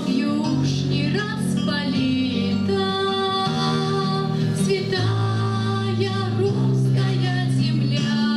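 School choir singing, holding long notes that change pitch every second or so.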